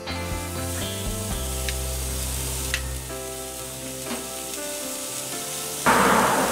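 Sirloin steak sizzling as it sears on the hot grate of a Napoleon gas grill, a steady hiss. Near the end the sizzle suddenly gets much louder.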